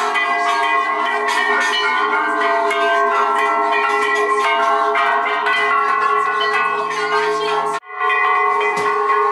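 Many hanging metal bells being struck one after another, their tones ringing on and overlapping. The ringing cuts out briefly near the end and then carries on.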